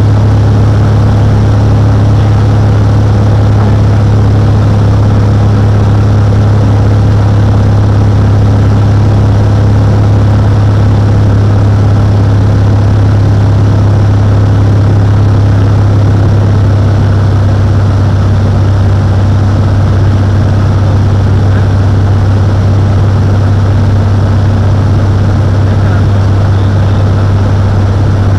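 Cessna 182's piston engine and propeller running, a loud, deep, steady drone that holds one pitch.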